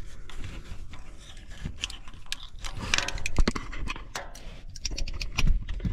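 Metal hand tools clicking and scraping on the screws of an aluminium engine cover as they are tightened down evenly, so the cover seats straight and does not crack. Irregular sharp clicks, bunched about two to three and a half seconds in and again near the end.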